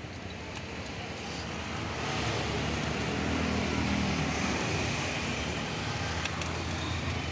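Street traffic noise: a motor vehicle's rumble swells over a couple of seconds and then fades a little.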